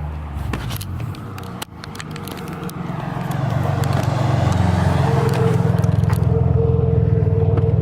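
Turbocharged car engine running on about 5 psi of boost, fitted with an HKS blow-off valve. It runs steadily at first, dips sharply about a second and a half in, then grows louder over the next two seconds and holds a steady, louder note.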